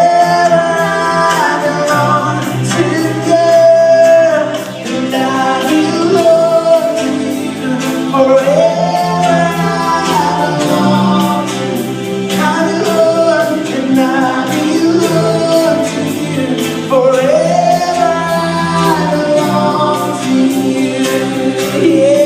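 Gospel worship music: voices singing long held notes that swoop up into each phrase, over a band with a steady beat.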